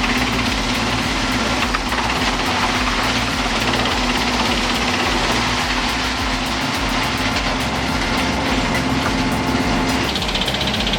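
Wood chipper running steadily, its engine and cutting gear making a constant loud machine noise. About ten seconds in the sound changes and a higher hiss comes in.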